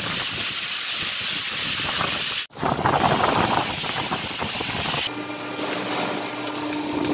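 Steady hissing machine noise in a sheet-metal shop, with the hydraulic press brake in use for bending stainless steel sheet. The sound cuts out for an instant about two and a half seconds in. From about five seconds in, a steady low hum runs under the hiss.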